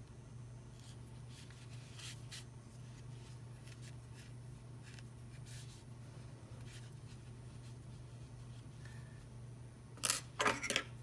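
Faint rustling of thread being drawn around a yarn-wrapped ball, then about ten seconds in a quick cluster of sharp snips from small scissors cutting the thread.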